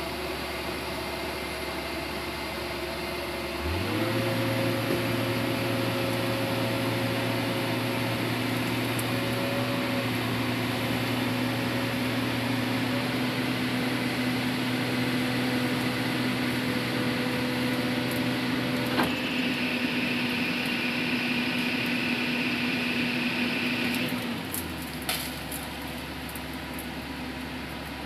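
Crawler bulldozer's diesel engine running, stepping up to a steady high throttle a few seconds in and holding there. Later a click is heard and a higher whine joins in; near the end the engine drops back to a lower, quieter run.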